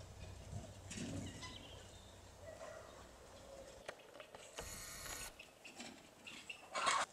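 Chickens clucking faintly in a farmyard, with a few brief noisy bursts and a louder one near the end.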